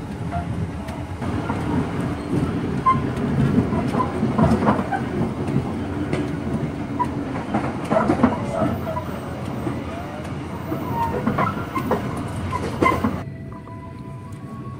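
Kutojaya Selatan passenger train running along the track: a steady rumble with the wheels clacking and knocking over the rail joints. It cuts off suddenly near the end.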